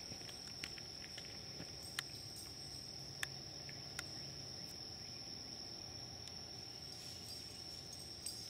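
Insects trilling in one steady, unbroken high-pitched drone, with a few sharp clicks cutting in.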